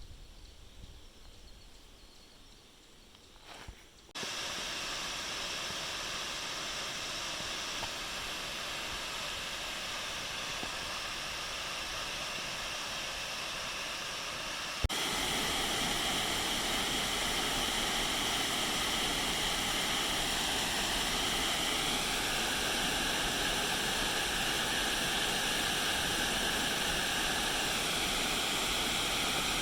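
Steady rush of falling water from a waterfall, starting abruptly about four seconds in and stepping louder after a sudden change about halfway through. The first few seconds are much quieter.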